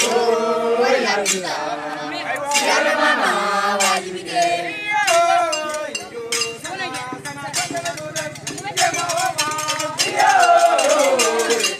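A crowd of voices singing and chanting together, with sharp metallic clinks of struck percussion recurring through the song.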